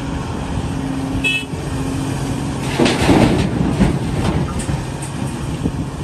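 Caterpillar 349E excavator's diesel engine running steadily as it tips a bucket of dirt into a dump truck's tipper trailer. A louder rush about three seconds in is the dirt pouring into the steel body, and a short high beep comes about a second in.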